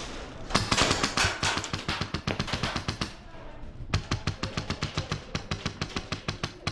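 Airsoft guns firing on full auto: two long bursts of rapid, evenly spaced shots, a pause of about a second between them, the second starting abruptly.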